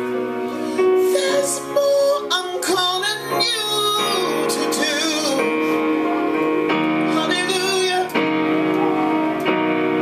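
A woman sings with vibrato while accompanying herself on a digital piano, playing held chords that change every second or two.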